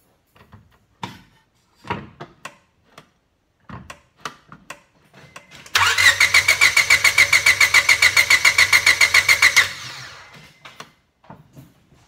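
Honda D17 four-cylinder engine cranked over by its starter for about four seconds with the fuel injectors disconnected, so it turns over with a quick, even pulsing and never fires: the cranking for a compression test, which reads about 180 psi. A few light clicks and knocks come before it.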